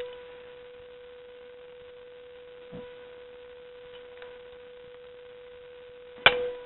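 A steady electrical hum, with two faint knocks and one sharp click near the end as pliers twist apart a metal RC crawler shock.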